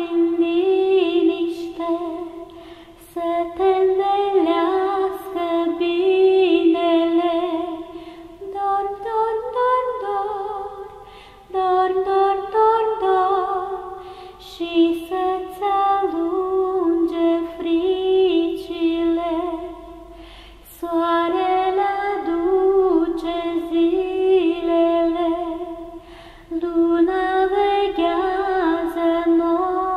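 A woman singing a Romanian lullaby unaccompanied, in slow melodic phrases of a few seconds separated by short breaths.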